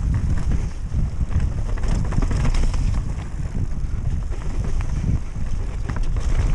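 Wind buffeting the action camera's microphone as a mountain bike rides down a trail, with frequent knocks and rattles from the bike over rough ground.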